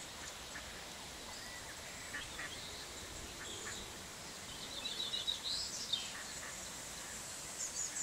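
Waterbirds and small birds calling faintly at a pond: a few short calls about two seconds in, then a run of high chirps from about four and a half to six seconds, over a steady outdoor hiss.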